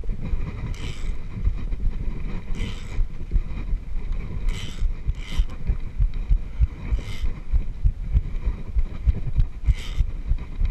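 Low, uneven rumble and thumping on a climber's body-worn camera microphone, from wind and movement. A short hiss comes every one to three seconds.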